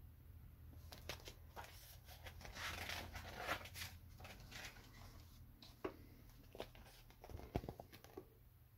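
Paper pages of a picture book rustling as the book is handled and a page is turned, followed by a few light handling knocks and clicks.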